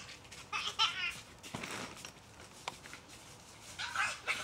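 A young child's high-pitched squeals and babbling, once about half a second in and again near the end, with a brief soft knock in between.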